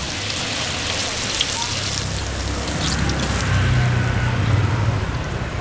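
Battered banana fritters deep-frying in a wok of hot oil: a dense crackling sizzle. A low hum joins about three and a half seconds in.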